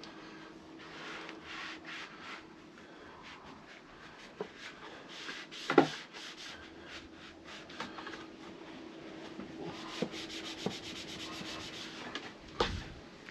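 Repeated rubbing strokes of hand-cleaning motorcycle parts, with one sharp knock a little before halfway and a short run of quick ticks later on.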